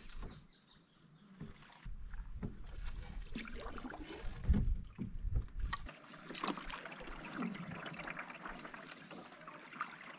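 Canoe paddle strokes on calm river water: the blade dipping and pulling, with drips and small splashes running off it. Quiet for the first couple of seconds, then steadier splashing and dripping, loudest about halfway through.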